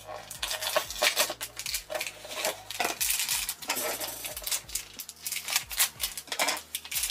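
Plastic blind bag crinkling and crackling as it is handled and torn open, a rapid, irregular run of crackles.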